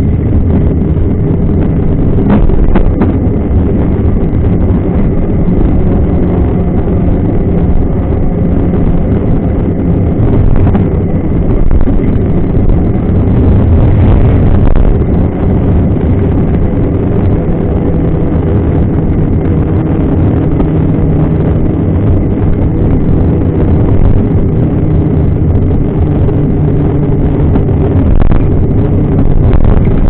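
Knobby mountain-bike tyre rolling on asphalt: a steady hum that drifts slightly in pitch with speed, over wind rumble on the microphone.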